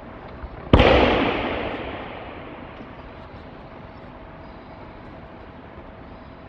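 Aikido partner's breakfall: a body slamming onto the mat once, about a second in, with a long echo ringing through the large hall.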